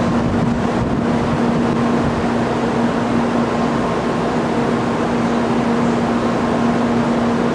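Steady station hum and rumble: a constant low tone at one pitch over an even wash of noise, holding its level throughout.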